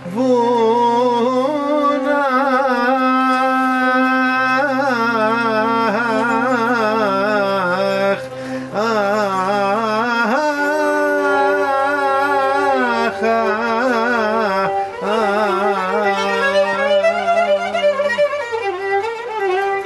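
Live Greek folk music: a violin plays an ornamented, wavering melody over lower held accompanying notes, as an instrumental passage before the singing comes in.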